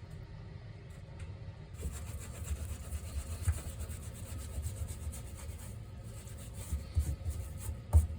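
Irregular rubbing and scraping that starts about two seconds in, over a low rumble, with a couple of sharper knocks near the end.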